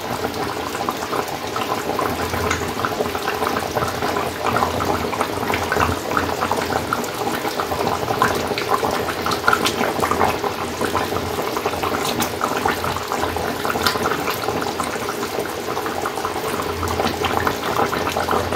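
Chicken curry boiling in a kadai: a steady bubbling with many small pops as the thin gravy boils.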